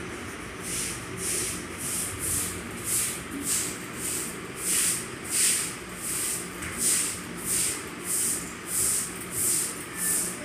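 Pen scratching across ruled paper while writing cursive letters: a short, scratchy hiss with each stroke, about two a second, starting about half a second in, over a steady low background rumble.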